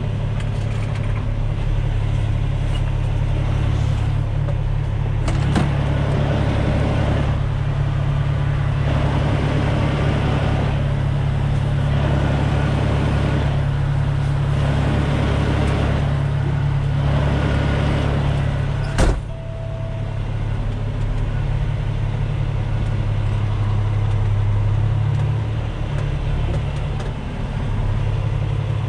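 Semi truck's diesel engine running steadily at low speed, a constant low drone, with one sudden sharp click about two-thirds of the way through.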